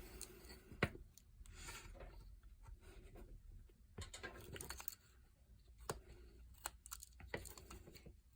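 Swiss Army knife blade shaving basswood: short, irregular scraping cuts with a few sharp clicks, as a section of the carving is rounded over.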